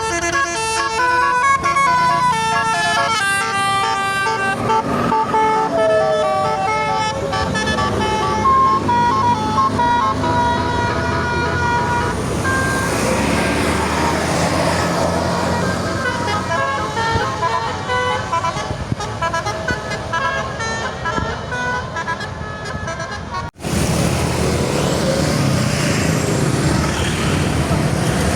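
A bus's multi-tone Basuri telolet horn playing a quick stepped melody, with engine and road noise underneath. After an abrupt break about 23 seconds in, only engine and road noise remain.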